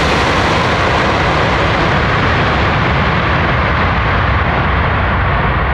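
Loud jet engine noise from a Boeing 747's four engines as the airliner rolls out on the runway after landing: a steady rush whose high end fades and turns duller as the aircraft draws away.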